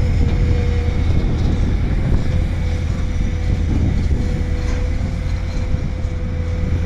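Heavy diesel engine of a Volvo excavator running steadily, a low rumble with a faint steady whine above it.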